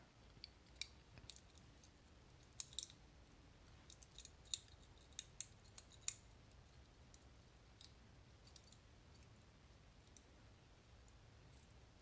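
Faint, scattered small metallic clicks of a Kaba Ace dimple-lock pin housing worked by hand, its retaining sleeve rotated off over a shim that holds the spring-loaded drivers in place. The clicks are mostly in the first half.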